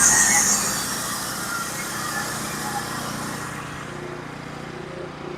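Norwood HD36 portable band sawmill finishing a cut through a hardwood log. The cutting noise dies away over the first three or four seconds, leaving the engine running steadily at a lower pitch.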